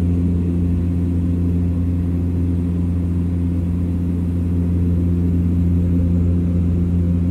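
Cessna Caravan's single PT6A turboprop heard from inside the cabin in level cruise at 9,000 ft: a loud, steady drone with a deep propeller hum and several steady tones layered above it.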